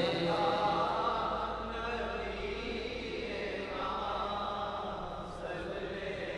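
Faint voices chanting softly in the background of a naat recital, a steady drone-like chant left after the lead singer's line has ended.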